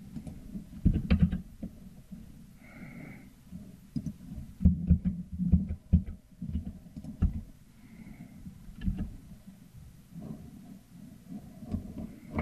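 Irregular keyboard keystrokes and mouse clicks picked up by a desk microphone, heard as dull thumps with a few sharper clicks, including Ctrl+Z keypresses.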